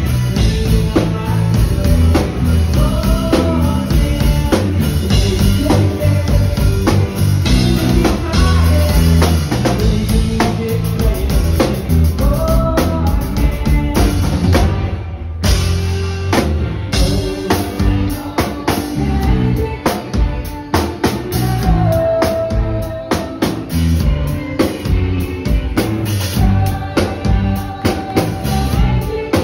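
A live band playing a song, with drum kit, bass, guitar and a man singing lead over a steady beat.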